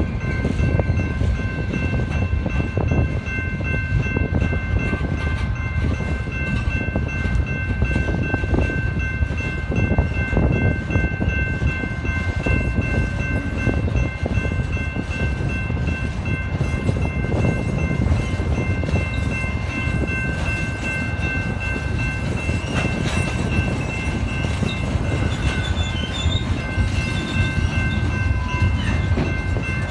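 Long freight train of pipe-loaded flatcars rolling steadily past, its wheels rumbling and clacking on the rails, with wind buffeting the microphone. A grade-crossing signal keeps up a steady high ringing that fades a little in the last third.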